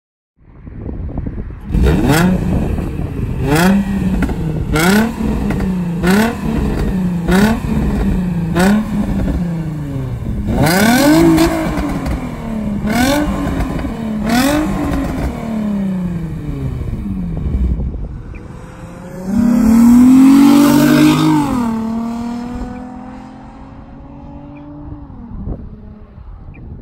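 Nissan 350Z's VQ35DE 3.5-litre V6 breathing through non-resonated test pipes in place of the catalytic converters and the stock exhaust, revved over and over, a blip roughly every second and a half, then a few higher revs. Near the end it pulls away hard, its loudest surge, and the note drops and fades off into the distance.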